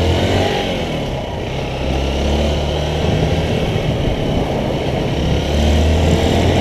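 Motorcycle engine running under way, its pitch rising as the bike accelerates at the start, then holding fairly steady.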